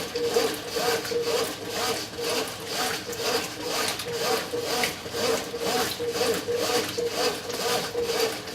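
Brastemp 9 kg washing machine agitating a full tub: a steady motor hum under a rhythmic swish of water and laundry, about two strokes a second.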